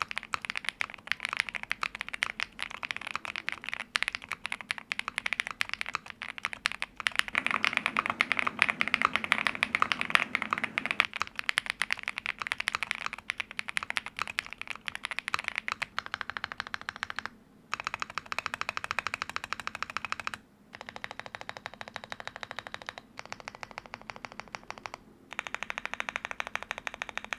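Typing on a stock Angry Miao Relic 80 aluminium TKL custom keyboard with factory-lubed IC Silver linear switches, a fast, steady run of keystrokes with a few short pauses. The stock sound is "very solid".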